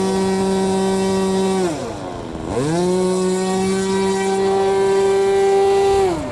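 Radio-controlled model airplane's engine running at a high, steady pitch in flight. About two seconds in, the pitch drops sharply and then climbs back up within a second; it falls again near the end.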